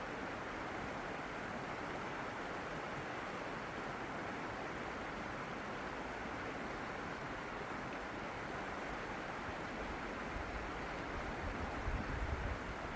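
Steady rushing outdoor noise with no change in pitch. Low gusts of wind buffet the microphone from about ten seconds in.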